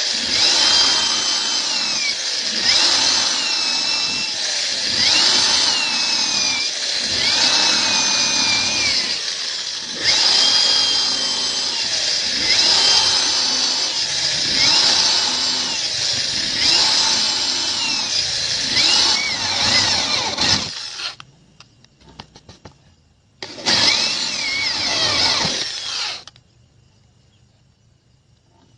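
Electric power tool cutting wood in repeated passes, its motor pitch dipping under load and recovering about every two seconds. It stops about three-quarters of the way through, runs again briefly, then goes quiet.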